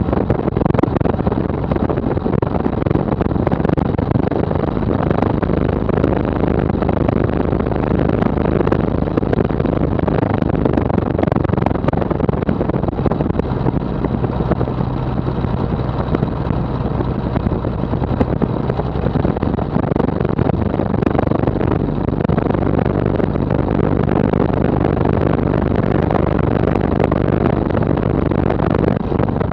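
Maule M7-260 amphibian's six-cylinder Lycoming IO-540 engine and propeller running steadily at taxi power, heard from a camera mounted outside on the airframe, with occasional light clicks and rattles.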